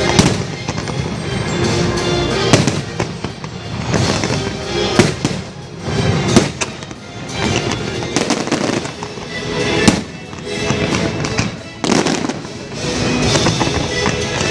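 Fireworks going off in sharp bangs and crackles every second or two, over loud show music played through the park's speakers.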